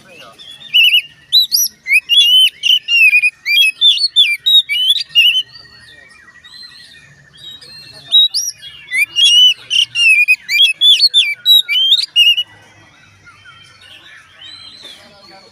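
Oriental magpie-robin (kacer) singing a loud, fast run of varied whistled notes and chirps in two long bursts, with a pause of a couple of seconds between them.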